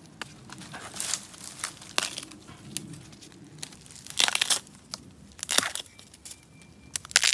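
Wild bamboo shoots being snapped off at the base by hand: several short, crisp cracks, the loudest about four seconds in and at the very end. In between, dry bamboo leaves rustle and crackle.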